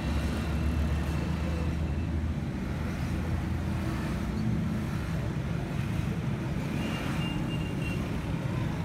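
Steady low rumble of motor vehicle noise, heaviest for the first two seconds or so.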